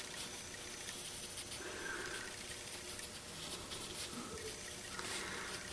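Faint, soft scratching of a wet paintbrush being stroked across watercolor paper, over a steady background hiss.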